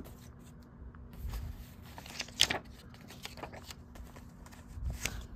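Hands handling a VHS tape and its paper inserts: light rustling of paper and small clicks, with a sharper click about two and a half seconds in and another near the end.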